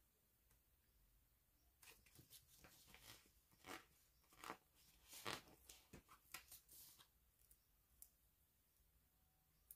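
Faint crinkling and crackling of a paper sticker sheet being handled as a sticker is peeled off it: a string of small crackles lasting about five seconds, then a single faint click near the end.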